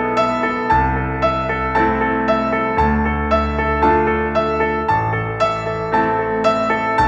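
Background music: a gentle piano-led track with a steady repeating note pattern over slowly changing bass notes.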